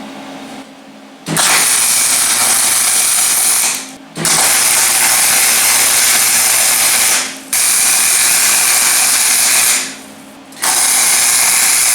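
Electric arc welding of a nut in place inside a steel truck bumper: four bursts of steady, even sizzle, each about two to three seconds long, separated by short pauses.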